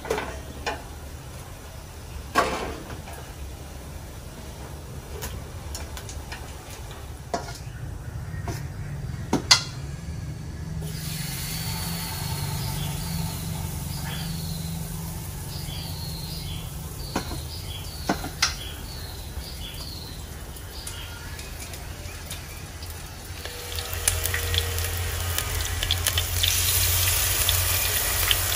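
Shrimp batter fritters deep-frying in hot oil, sizzling, with scattered clinks of utensils against the pot and bowl. The sizzle swells sharply near the end as fresh batter is ladled into the oil.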